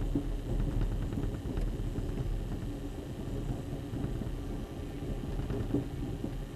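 Amtrak Coast Starlight passenger train in motion, heard from on board: a steady low rumble of wheels and running gear with a few light clicks.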